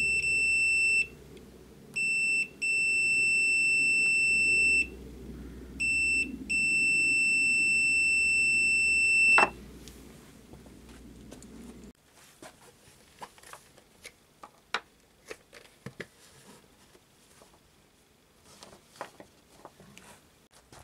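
Continuity beeper of a Mustool MDS8207 multimeter sounding a steady high-pitched beep in several stretches, some short and some a few seconds long, as the test leads make and break contact. It stops just before ten seconds in, and faint clicks and knocks follow.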